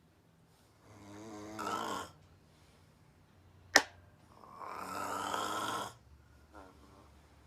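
A woman snoring: two snores about three seconds apart, the second longer and fuller. Between them comes one sharp click.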